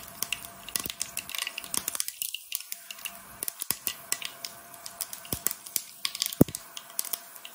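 Mustard and fenugreek seeds spluttering in hot ghee in a small pan: irregular sharp pops and crackles, one louder pop about six and a half seconds in. The popping is the sign that the tempering has reached the stage for adding curry leaves and dried chillies.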